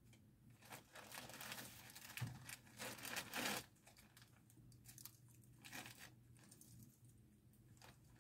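Plastic mailing bag crinkling and rustling as it is handled, in faint bursts that are loudest about three seconds in, then only small scattered rustles.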